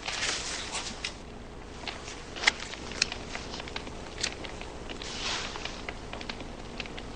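Soft rustling, with a scattered handful of small clicks and taps over a steady hiss; the sharpest taps come about two and a half and three seconds in.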